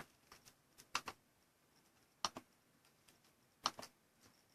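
Faint, scattered clicks of computer keyboard keys, in small groups of one to three about a second apart.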